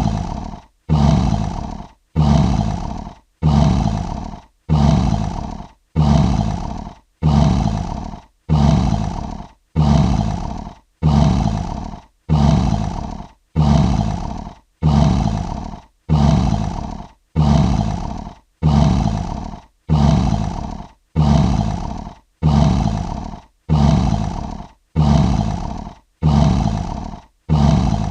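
Lion roar sound effect: a short roar, each one starting loud and fading within about a second, repeated identically about once a second as a loop.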